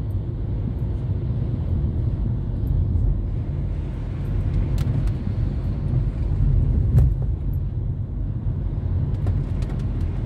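Steady low rumble of a car's engine and tyres heard from inside the cabin while driving on wet asphalt, with a few faint ticks.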